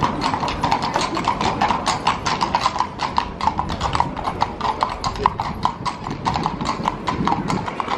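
Shod hooves of a pair of carriage horses clip-clopping on paving as they walk past: a fast, uneven run of sharp hoof strikes.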